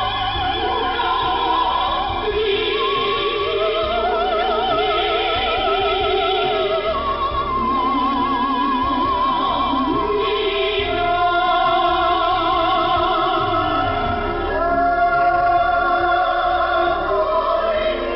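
Operatic-style singing with heavy vibrato over accompaniment, received over shortwave radio with a narrow, muffled band-limited sound.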